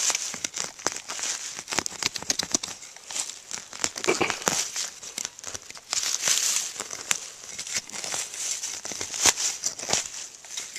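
Dry fallen leaves and loose soil rustling and crackling close to the microphone, with many irregular sharp clicks, as a freshly dug spot in the leaf litter is searched.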